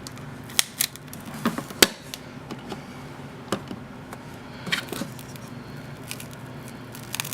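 Pry tool clicking and scraping against the edge of a Samsung Galaxy Note 8's back glass as it is worked under the glass to free the adhesive: a dozen or so scattered sharp clicks, the loudest a little under two seconds in, over a faint steady hum.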